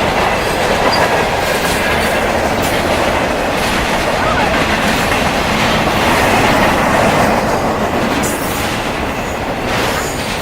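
A CN train rolling past, with the steady loud noise of its wheels on the rails and a few clanks. No horn sounds.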